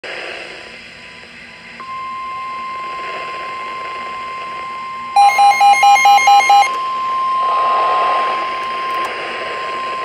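NOAA Weather Radio's steady 1050 Hz warning alarm tone sounding through a Midland weather radio's speaker over radio hiss, announcing a severe thunderstorm warning. About halfway through, a weather radio's own alert beeps rapidly about eight times over a second and a half, louder than the tone.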